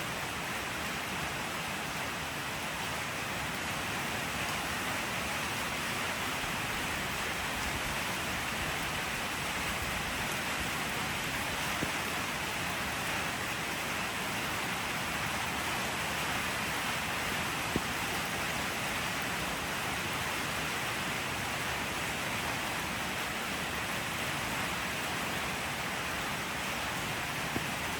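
Steady rain falling: an even, unbroken hiss with a few faint ticks of single drops.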